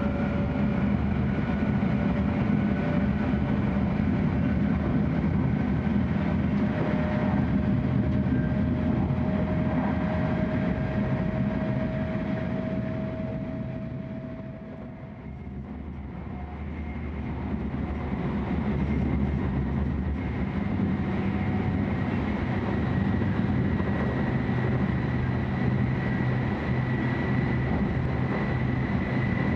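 Inside an E6-series Shinkansen car running at speed: the steady rumble of the running gear and air noise, with a faint tone slowly rising in pitch over the first third. The sound dips and thins briefly about halfway, then returns to the same level.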